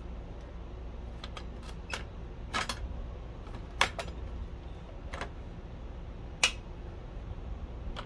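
Scattered sharp clicks and light metallic taps, about eight in all, as a miter saw's blade guard and arbor cover plate are handled and fitted back over a newly mounted blade, with a screwdriver going onto the cover screw near the end. The loudest clicks come a little before the four-second mark and about six and a half seconds in.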